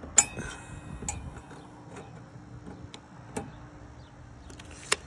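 A steel tape measure handled against a table saw blade and its metal throat plate while checking blade height: a few sharp clicks and ticks, the loudest just after the start, others about a second in, at about three and a half seconds and near the end.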